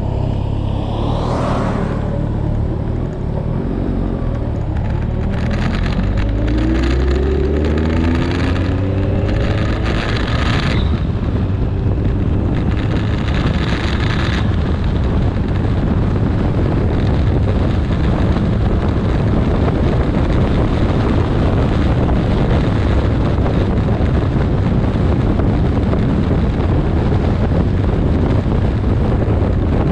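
Kawasaki 1400 Concours inline-four motorcycle engine pulling up through the revs, its pitch rising several times in the first few seconds, then wind rush over the microphone at steady road speed.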